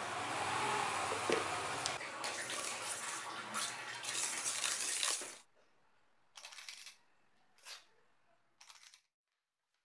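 Wire balloon whisk beating wet cake batter in a stainless steel bowl, its wires scraping and clattering against the metal, cut off suddenly about five seconds in. Then come three short scrapes, a silicone spatula wiping batter off the whisk against the bowl.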